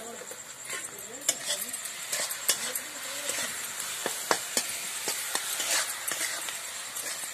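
A metal spatula stirring masala in a kadai, scraping and clicking against the pan many times, while the oil and spices sizzle over the wood fire.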